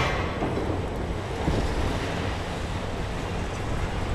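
Demolition excavator's diesel engine running steadily at a wrecking site, with a burst of crunching, clattering concrete debris at the start that dies away in the first half second.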